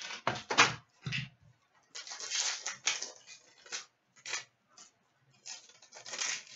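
Crinkling and tearing of a 2014/15 Fleer Ultra hockey card pack's foil wrapper and cards sliding against each other as they are handled, in short irregular bursts with brief gaps.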